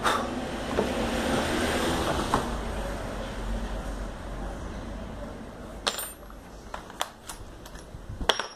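A knock at the start and a low rustling that fades, then a run of sharp metallic clinks of small metal hardware handled on the workbench, several of them from about six seconds in.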